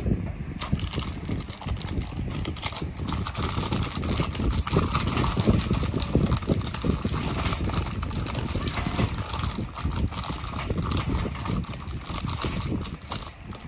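A small clear plastic bag of minifigure parts crinkling as it is handled, with small plastic pieces clicking against each other.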